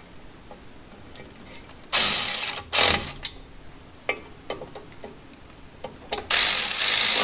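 Power ratchet running in short bursts, twice: once about two seconds in and again for about a second near the end. It is driving in the bolts that hold a new drum-brake wheel cylinder to the backing plate.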